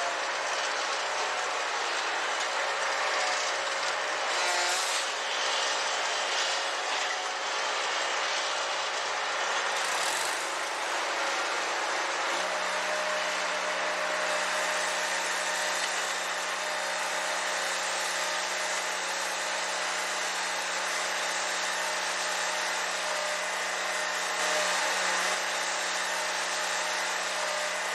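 Steady mechanical engine-like running noise with a constant hum, a lower steady tone joining about twelve seconds in.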